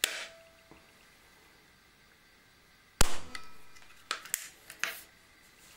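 .177 Webley Nemesis single-stroke pneumatic air pistol: the cocking arm is pressed shut with a sharp, briefly ringing click, charging the air for one shot. About three seconds later comes a single sharp crack, the loudest sound, the pistol firing. A few quicker clicks of the action follow.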